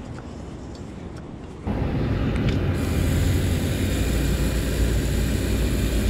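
Light wind on the microphone, then about two seconds in a beach rinse shower is suddenly heard running, water spraying and splashing onto pavers as a loud, steady rush.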